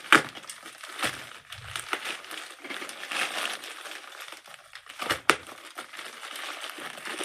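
Packaging rustling and crinkling as a smoke detector is unwrapped by hand, with two sharp clicks, one just after the start and one about five seconds in.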